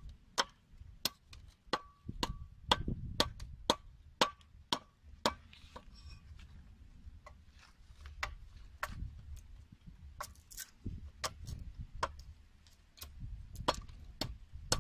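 A blade striking a bamboo pole in sharp, separate cracks, about two a second, thinning out after about six seconds.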